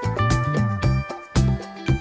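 Upbeat background music with a steady beat, bass and guitar-like melody.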